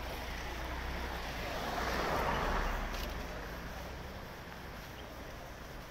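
Street traffic: a vehicle passing, its noise swelling to a peak about two seconds in and then fading, over a steady low rumble.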